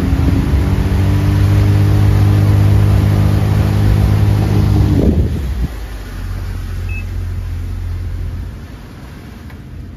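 Sea-Doo Switch jet-drive pontoon's engine and jet pump running steadily under way, with water rushing, then dropping off sharply about five seconds in as the boat slows, and easing lower again near the end. A short electronic beep sounds about seven seconds in.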